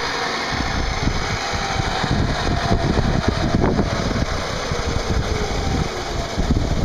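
CNC milling machine running, a steady mechanical rumble with fan noise and a faint whine that slowly falls in pitch over several seconds.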